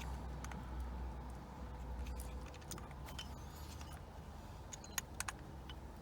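Scattered light clicks and taps of small metal parts and screws being handled while a steering hub adapter and clock spring are fitted, with a few sharper ticks about five seconds in, over a low steady rumble.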